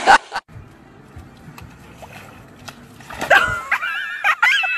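A brief splash of water right at the start, then, after a quiet stretch, a dog whining and yipping in high, wavering calls through the last second and a half.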